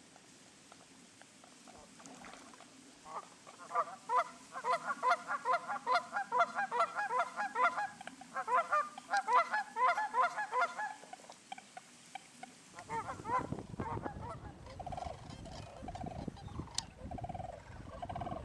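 A flock of large birds calling in a dense chorus of overlapping honking calls for several seconds. Near the end the calls come more spaced out over heavy wind rumble on the microphone.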